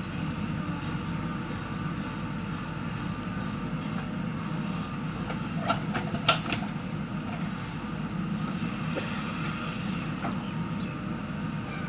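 JCB 3DX backhoe loader's diesel engine running steadily under work. A few sharp clanks come about halfway through, the loudest just after the middle.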